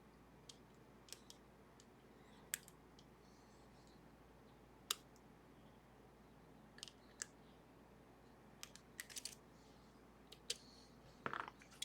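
Lock picks working the levers of a Sargent & Greenleaf 4440 safety deposit box lever lock: faint, irregular sharp metal clicks, with a quick run of several about nine seconds in.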